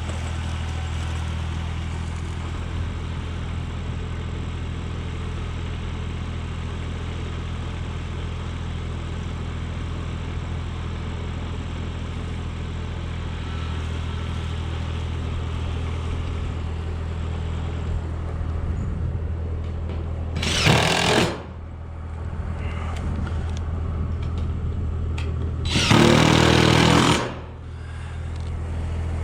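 A power drill runs in two short spells on metal roof panels, about 20 seconds in and again near 26 seconds, the second spell longer and louder. A steady low engine hum runs underneath.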